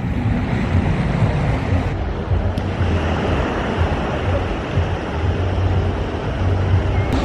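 Surf washing on a sandy beach, with wind buffeting the microphone and adding a steady low rumble.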